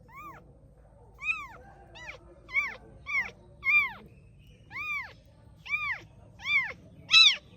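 A cat meowing over and over: about ten short meows, each rising and then falling in pitch, coming roughly one every half second to a second.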